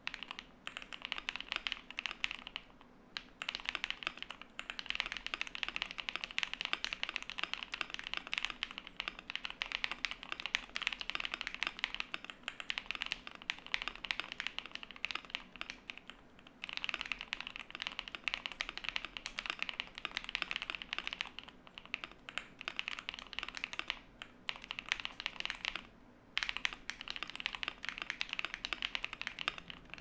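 Fast, continuous typing on a KBD67 Lite R2 custom mechanical keyboard with a POM plate, PE-foam mod, PCB foam and silicone bottom pad, Durock POM switches lubed with 205g0 and doubleshot ABS keycaps: a dense run of sharp key clacks, with short pauses about three seconds in, midway and twice near the end.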